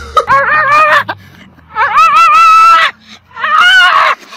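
A dog's high-pitched howling: three drawn-out calls that waver up and down in pitch, with short pauses between them.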